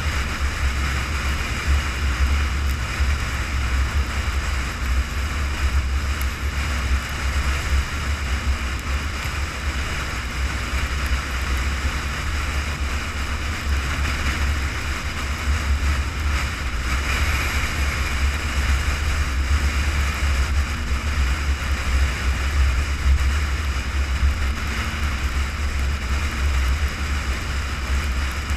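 A car driving at highway speed: steady road noise and wind buffeting the microphone, a deep rumble with a hiss above it.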